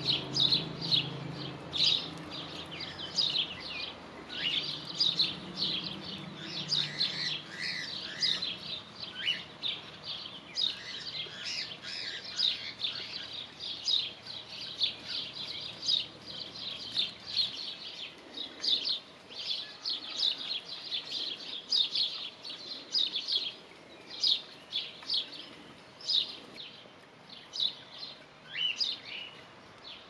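Busy chirping from a flock of house sparrows: many short, quick chirps overlapping almost without a break, some sliding down in pitch.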